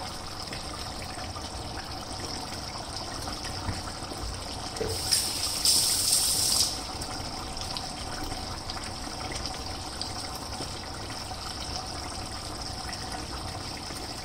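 A pot of chicken curry simmering uncovered on a gas stove, letting its water cook off until the oil rises, over a steady hiss and hum. About five seconds in, a louder burst of high hissing lasts under two seconds.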